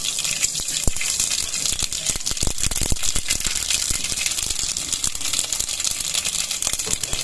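Mustard seeds spluttering in hot coconut oil: a dense, continuous crackle of rapid pops over a high sizzle.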